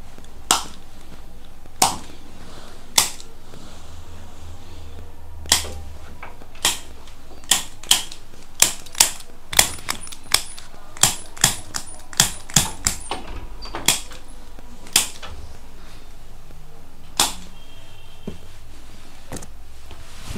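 Spring-loaded handheld chiropractic adjusting instrument (activator) firing against the patient's legs and back, giving about twenty sharp clicks at irregular intervals, with a quick run of clicks in the middle.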